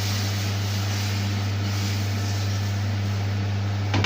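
Pancake batter sizzling in a hot frying pan, an even hiss over a steady low hum. There is a short knock at the very end.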